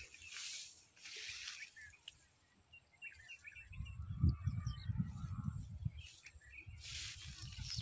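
Outdoor field ambience: a few faint bird chirps in the middle, with bursts of hiss and an irregular low rumble on the microphone.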